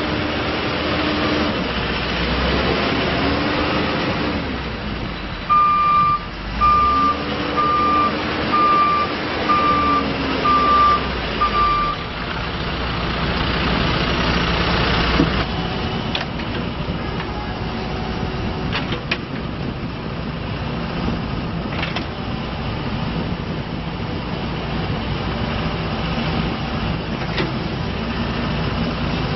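John Deere 310J backhoe loader's diesel engine running, its revs rising and falling, while the reverse alarm beeps about seven times, once a second, as the machine backs up. Later the engine runs more steadily, with a few clicks.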